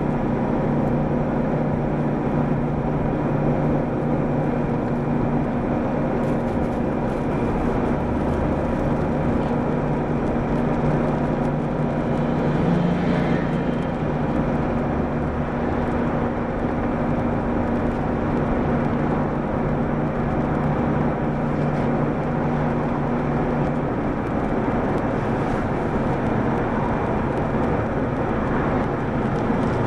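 Mitsubishi Fuso PDG-AA273KAN city bus under way, heard from inside the cabin: a steady engine drone over road noise. The engine note changes about 24 seconds in.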